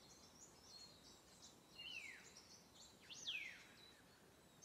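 Faint birdsong: scattered high chirps, and two clear whistled calls, the first falling in pitch about two seconds in, the second rising sharply then falling about a second later.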